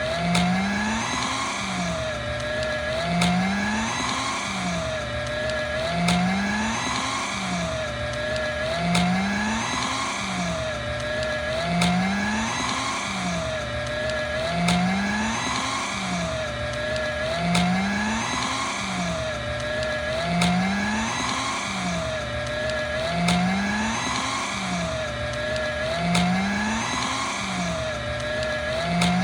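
Paper shredder motor running and cutting through stiff paper, its whine dipping and rising in a cycle that repeats about every three seconds.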